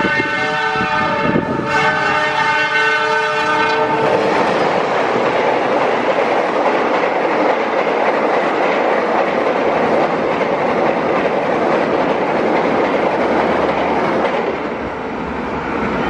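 Locomotive horn sounding a chord of several tones for about four seconds as a passenger train approaches. The horn stops and gives way to the steady rumble and clatter of the coaches rolling past, which eases off near the end.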